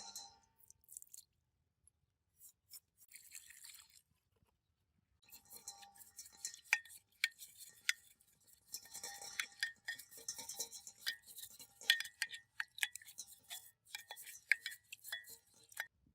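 Small metal parts and hand tools being handled: rapid clicks, scraping and light clinks with a faint metallic ring, busiest from about five seconds in.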